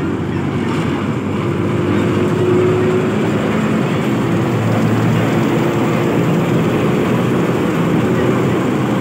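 Bangladesh Railway diesel-electric locomotive running close by as it moves past, a loud steady engine drone with a low hum.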